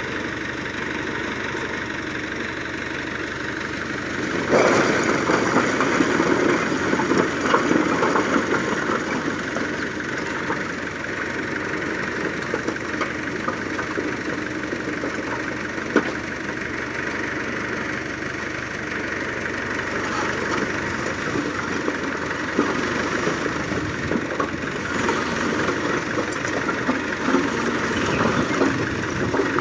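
Fiat 640 tractor's three-cylinder diesel engine running steadily as its hydraulic tipping trolley lifts. A loud rush of bricks clattering and sliding off the bed starts about four seconds in, and more clatter comes near the end.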